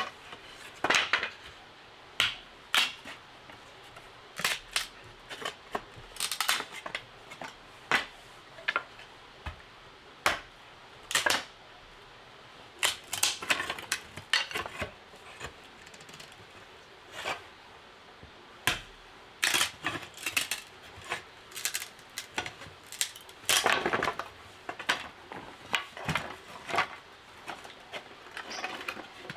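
Irregular sharp clicks and knocks of hard objects being handled, some single and some in quick clusters, over a faint steady background hiss.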